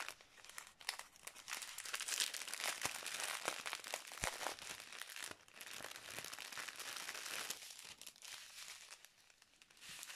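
Clear plastic packets of diamond-painting rhinestones crinkling and rustling as they are handled, with a dense crackle of small clicks. It eases off briefly about five seconds in and goes quieter near the end.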